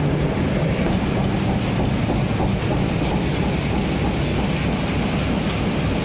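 Electric-driven industrial wood chipper running under load, with a steady low hum and a continuous rattle of wood chips spilling onto a slat chain conveyor.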